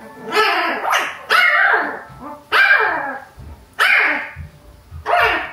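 A dog calling out: five loud yelping cries about a second and a quarter apart, each falling in pitch.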